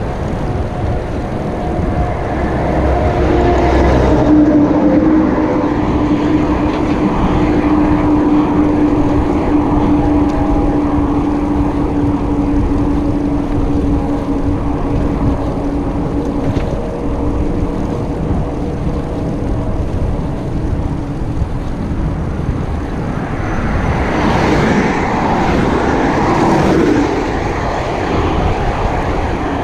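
Wind rushing over the microphone of a cyclist's camera while riding, mixed with the steady hum of motor traffic on the road alongside. A vehicle passes louder near the end.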